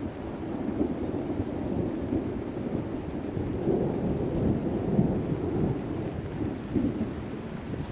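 Rolling thunder from a nearby storm: a low, rough rumble that builds over the first seconds, is loudest around the middle, and eases off near the end.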